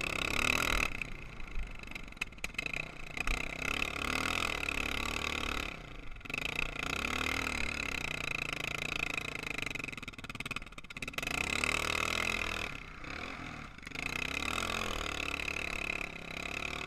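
Sport ATV engine revving under throttle, rising and easing off repeatedly, with brief drops in the engine sound about six, eleven and thirteen seconds in.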